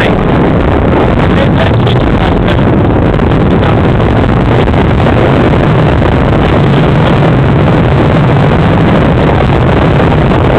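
Heavy wind buffeting the camera's microphone while riding a bicycle: a loud, steady rumble with no break that covers everything else.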